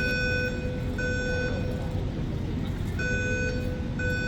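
Building fire alarm sounding in the three-beep evacuation pattern: high half-second beeps about once a second, three in a row, then a longer pause before the next group. A low steady rumble runs underneath.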